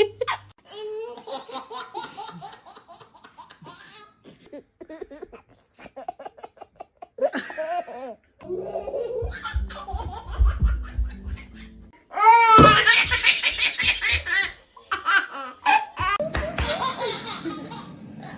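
A baby laughing in repeated bursts of belly laughs and giggles, loudest in a long run of laughter about twelve seconds in.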